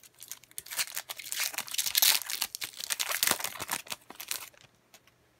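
Foil trading-card pack wrapper crinkling as it is pulled open and the cards are slid out, a dense run of crackles that stops about four and a half seconds in.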